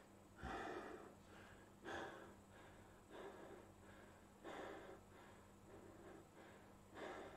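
Faint breathing: a man's soft breaths, about five of them at uneven gaps of one to two and a half seconds, over a steady low hum.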